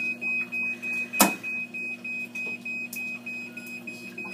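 Fresenius 2008K hemodialysis machine alarm beeping, a high tone repeating about three times a second, over a low steady hum. A single sharp knock about a second in.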